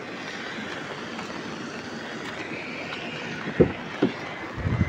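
Steady hiss of heavy rain falling on a wet road, with a few dull thumps in the last second and a half.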